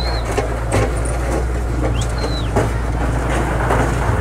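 Volvo EW130 wheeled excavator's diesel engine running steadily under load as it breaks into a masonry wall, with scattered knocks of rubble and twice a brief high squeal.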